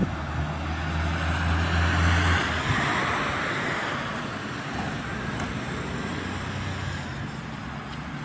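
Street traffic: a vehicle passing on the road swells and fades away over the first few seconds, over a steady low hum that drops away about two and a half seconds in.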